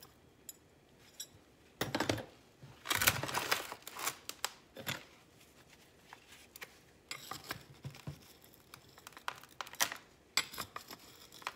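Gritty potting mix being scooped with a small metal hand trowel and tipped into a pot, in several short rustling scrapes with pauses between.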